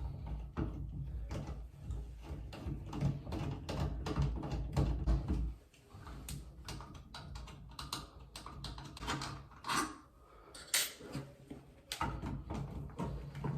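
Screws being backed out of a shower valve faceplate: an irregular run of small metallic clicks, taps and scrapes from the screwdriver and trim parts, with a low rumble in the first half that stops about halfway through.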